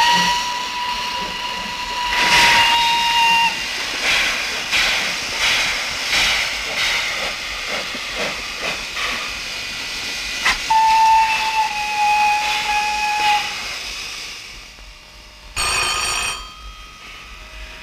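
Steam locomotive whistles sounding two long steady blasts, the second a little lower and coming about eleven seconds in, over a constant hiss of escaping steam. Near the end a telephone bell rings briefly.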